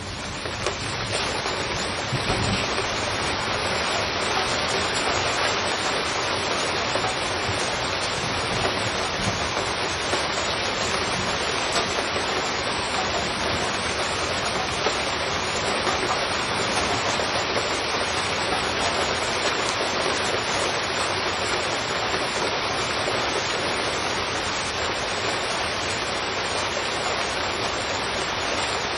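Heavy rain pouring down steadily: a dense, even hiss that swells up over the first couple of seconds and then holds level.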